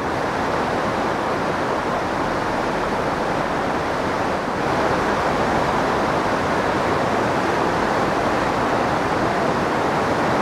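Mountain stream rushing over a stony riverbed: a steady, even wash of flowing water.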